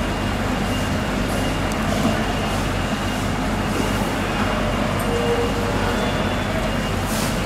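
A steady low mechanical hum under a constant rumbling din, like an engine or machinery running without pause.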